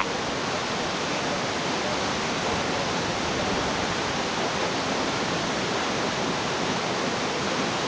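Waterfall rushing in heavy flow: a steady, even roar of falling water.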